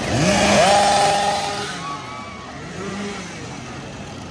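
Chainsaw revving: the engine pitch climbs quickly over about half a second and holds at high revs for about a second, then drops back. A smaller rev comes near the end of the third second.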